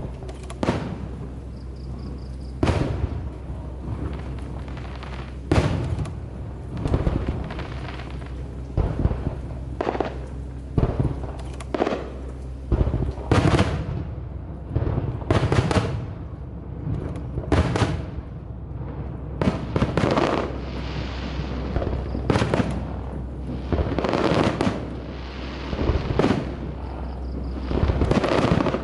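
Aerial fireworks bursting overhead: a long, irregular run of sharp bangs, several seconds apart at first and coming close together after the middle, some followed by crackle.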